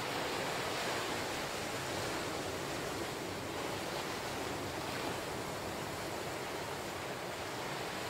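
Ocean surf: small waves breaking and washing up over a sandy beach among rocks, a steady rushing wash of water with gentle swells in loudness.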